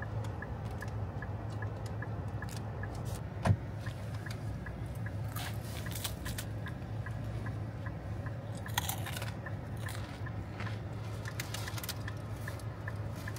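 Crunchy bites and chewing of a flaky croissant roll, with crinkles of its paper bag, over the steady low hum of a car's interior and a faint, even ticking. A sharp click about three and a half seconds in is the loudest sound.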